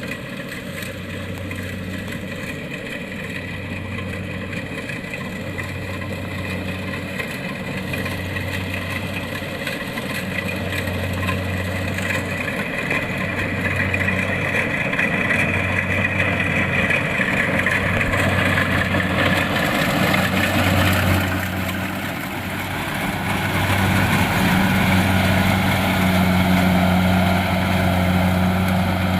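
Kubota DC-70 Plus rice combine harvester running, its diesel engine and harvesting machinery droning steadily and growing louder over the first twenty seconds or so.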